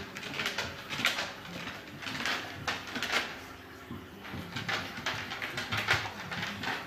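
A Goldendoodle rolling and squirming on a wooden floor, its fur and paws making a run of short scuffing, brushing sounds against the boards.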